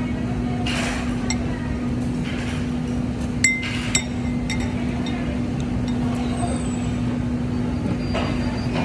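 Two sharp clinks of tableware about half a second apart, a little past the middle, over a steady low hum and rumble.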